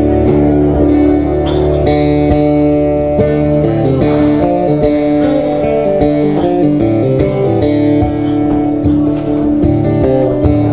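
Acoustic guitar strummed through a chord progression, the chords changing every second or so, with no singing.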